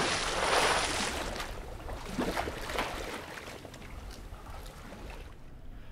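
Splash of an object dropped into water, loud at first and then a water noise fading away over a few seconds.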